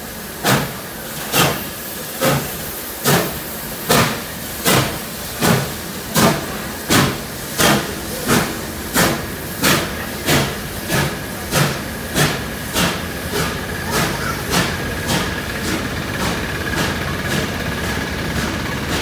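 Steam locomotive 3801, a NSW C38 class 4-6-2, pulling away under steam: a regular chuff of exhaust beats that quickens from about one a second to about two a second and fades as it moves off. The carriages roll past underneath, and a thin steady wheel squeal joins in the second half.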